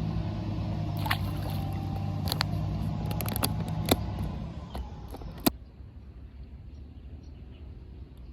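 A steady engine hum with several sharp clicks and knocks over it. About five and a half seconds in, it cuts off abruptly to quieter outdoor ambience.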